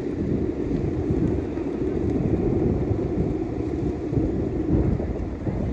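Strong wind buffeting the microphone: a steady low rumble that swells and dips.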